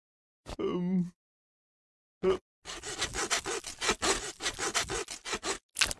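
Hand saw sawing in quick back-and-forth strokes, about four a second, starting a little under three seconds in and stopping near the end. A short pitched vocal sound comes about half a second in.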